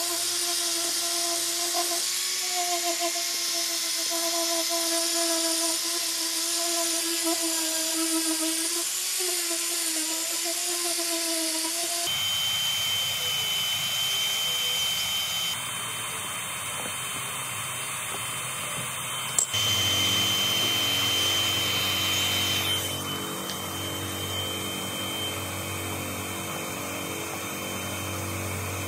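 Angle grinder running with a steady whine, its disc grinding along a cracked plastic car bumper. About twelve seconds in the sound changes abruptly to a different power tool with a thin, high steady whine, with a single sharp click about twenty seconds in.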